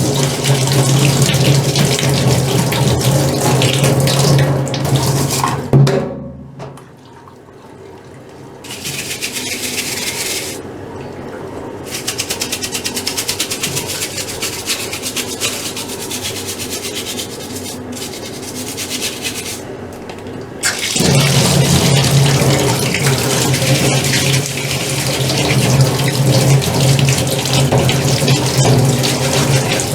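Water running hard with a steady low hum. It shuts off about six seconds in, leaving a quieter stretch with an even rhythmic sound, and comes back on suddenly about twenty-one seconds in.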